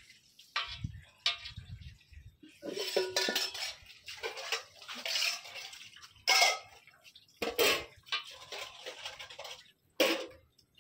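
Small whole fish being washed and handled in water in a stainless steel bowl: irregular splashing with clinks and knocks against the metal bowl.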